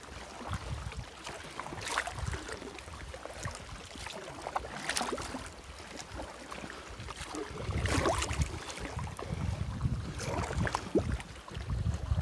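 Kayak paddle strokes splashing and dripping in lake water every few seconds, with wind rumbling on the microphone, heavier in the second half.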